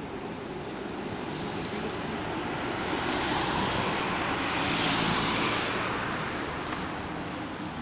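Road traffic, with a yellow U-Bahn train crossing the elevated viaduct. The noise swells to its loudest about five seconds in as a car passes close, then fades.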